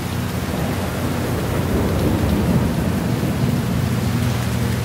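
Steady rainfall with a low roll of thunder that swells up about half a second in, peaks around the middle, and fades again near the end.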